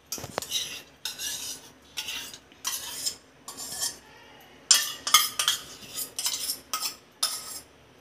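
Metal spoon scooping ghee out of a small steel bowl and scraping it into a non-stick kadhai: a string of about ten short scrapes and clinks of spoon on metal.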